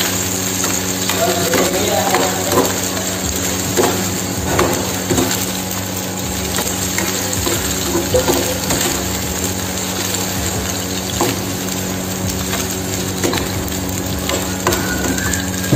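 Chicken and vegetables sizzling in a nonstick frying pan as they are stirred with a metal spoon, with the spoon scraping and clinking against the pan again and again.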